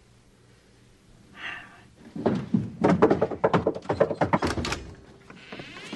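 A quick run of thuds and knocks, then a door hinge squeaking in a rising pitch as a door swings open near the end.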